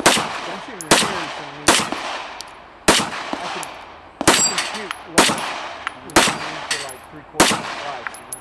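Eight pistol shots, slow and evenly spaced about a second apart, each with a short echo, with steel plate targets ringing when hit.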